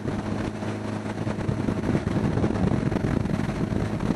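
1975 Honda Gold Wing's flat-four engine running steadily while under way, its even drone mixed with wind buffeting the helmet microphone.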